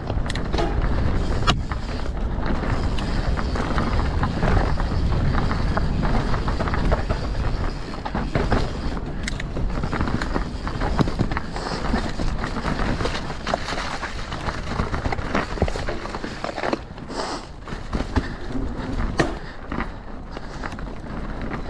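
Mountain bike ridden fast down a rough trail: a steady low rumble with a rapid, irregular clatter of tyres, chain and frame over rocks and roots.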